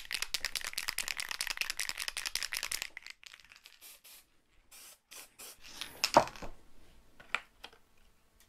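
Aerosol can of spray adhesive hissing in a fluttering spray for about three seconds, then light handling clicks and knocks, one louder knock about six seconds in.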